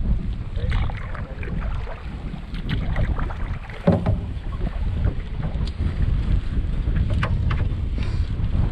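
Wind rumbling on the microphone of a camera mounted on the bow of a canoe under way on a choppy lake, with scattered light splashes and knocks and one sharper knock about four seconds in.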